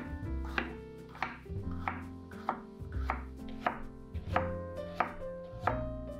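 Santoku knife slicing a yellow bell pepper into strips on a wooden cutting board, each cut ending in a crisp knock of the blade on the board, in an even rhythm of about one and a half cuts a second. Background music plays underneath.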